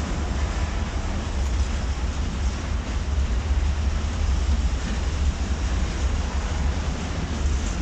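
A diesel-hauled freight train passes: the locomotive goes by, then a string of covered grain hopper wagons rolls past with a steady wheel-and-rail noise over a low rumble.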